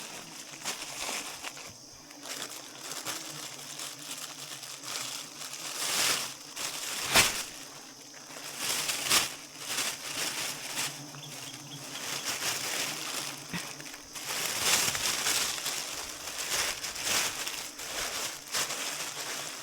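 Irregular rustling and crackling, with a sharp crack about seven seconds in and louder stretches around nine and fifteen seconds.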